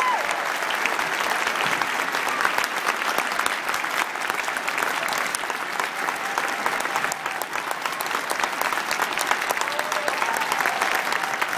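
Large crowd applauding, a dense, steady clapping that holds at an even level, with a couple of faint short cheers near the end.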